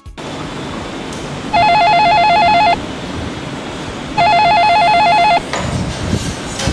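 KNTECH KNSP-18 weatherproof industrial telephone ringing with a warbling electronic ring, two rings about a second long each, over the steady hiss of water spraying on it in a spray test. Near the end its handset is lifted off, with a rougher splashing, handling noise.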